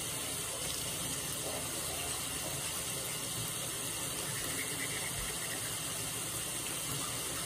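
Bathroom sink tap running steadily, an even hiss of water.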